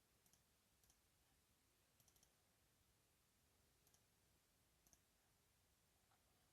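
Faint, sharp computer mouse clicks over near silence: a few single clicks and one quick run of three.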